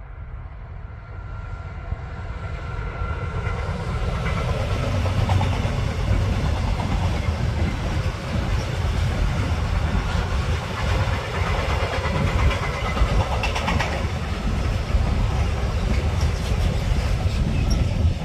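A train passing close by on the rails: a rumble that builds over the first few seconds as it approaches, then a steady loud rolling rumble with the wheels clattering over the track, dropping away at the very end.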